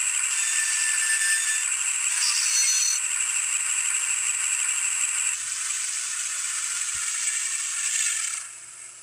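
Digitrax sound decoder in an N gauge Class 52 model locomotive playing simulated diesel engine sound through its tiny speaker, thin and tinny with almost no bass. The sound steps down about halfway through and drops away near the end.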